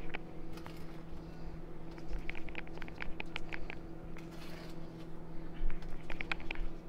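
Light clicks and scrapes of a metal spoon scooping soft cinnamon-sugar butter filling in a glass bowl and a silicone spatula dabbing it onto dough, coming in two quick clusters, over a steady low hum.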